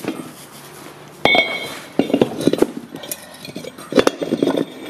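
Steel wheel spacer clanking against a tractor's steel wheel rim as it is fitted: one sharp metallic clank about a second in that rings briefly, then two clusters of lighter knocks and clinks.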